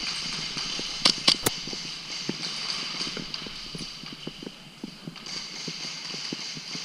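Rapid light footsteps on a hard indoor floor during an airsoft game, with three sharp cracks in quick succession about a second in.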